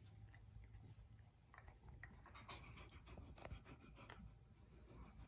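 Four-month-old Bernese mountain dog puppy panting softly while licking a face, with scattered faint clicks of its tongue and mouth; all very quiet.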